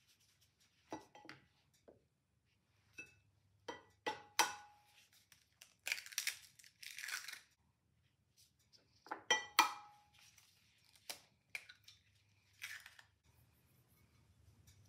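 Eggs cracked one after another against a ceramic pie dish: a few sharp taps on the shell, some with a short ringing note from the dish, then a crackling rustle as the shell is pulled apart and the egg drops in. A short sprinkle of seasoning follows near the end.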